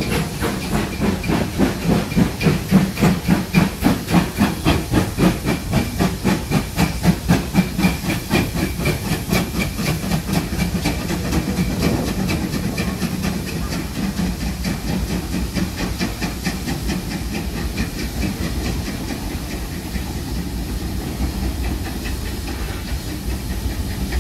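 Steam locomotive working, its exhaust beating in a steady rhythm of about two beats a second over a constant hiss of steam. About a third of the way in the beats grow quicker and less distinct.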